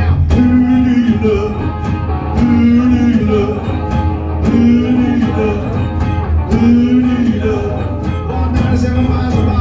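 Live rock band playing: electric guitar and drums with a male singer, a phrase repeating about every two seconds.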